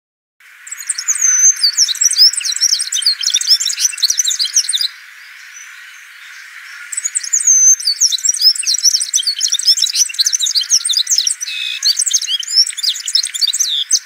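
Cape canary (Serinus canicollis) singing: two long bouts of fast, jumbled twittering and warbling with clear whistled notes, separated by a pause of about two seconds near the middle. A steady faint hiss lies beneath.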